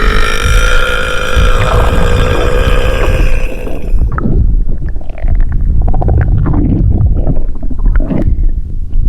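A long, drawn-out burp lasting about four seconds, then low, irregular gurgling stomach rumbles.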